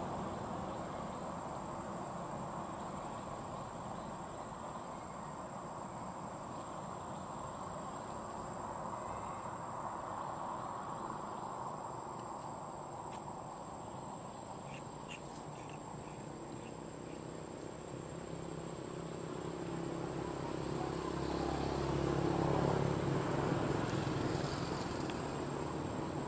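Steady high-pitched insect drone over a wash of outdoor background noise, the noise swelling louder about twenty seconds in.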